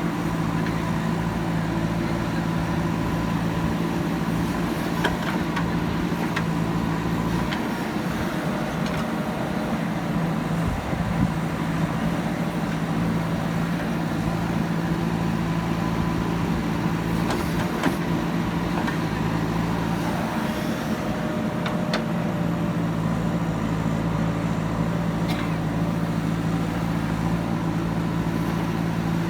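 A large diesel engine on earthmoving machinery runs steadily. Its note changes for a few seconds about eight seconds in, and there are a few faint knocks.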